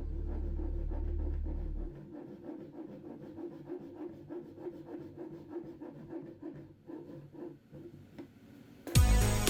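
Background music fades out after about two seconds. Then comes a run of quick, even scraping strokes, about four a second, from a hand tool cutting into wood for spline slots, sped up. Music comes back loudly near the end.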